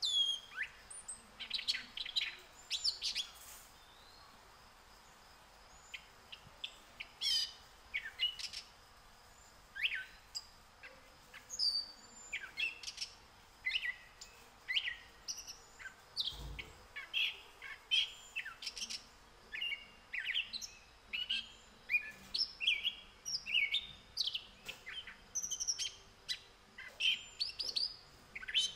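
Birds chirping and tweeting: many short, high, quick calls one after another, with a short lull a few seconds in. There is a brief low thump about halfway through.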